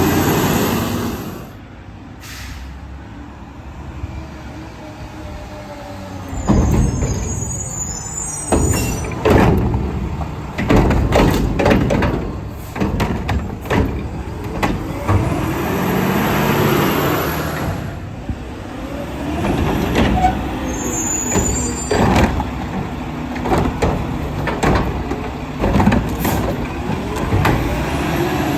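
Mack LR garbage truck with a McNeilus Meridian front-loader body working on route: the diesel engine runs while the collection gear makes repeated bangs and clanks. A long air hiss comes about halfway through.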